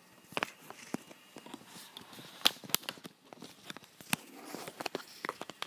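Handling noise on the recording device as it is picked up and moved: irregular clicks, taps and rustles against its body, the loudest about two and a half and four seconds in.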